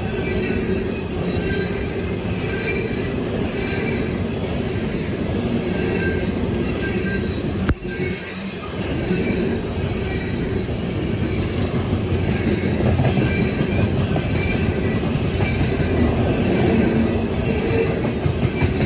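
CSX freight train's steel-wheeled coal cars rolling past close by: a steady rumble and clatter of wheels on rail, with faint high-pitched wheel squeal. A single sharp click about eight seconds in.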